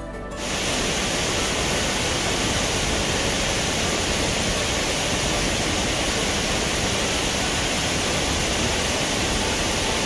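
Steady rush of falling water from a waterfall about 30 m high, Oshinkoshin Falls, heard close by. Background music stops just at the start.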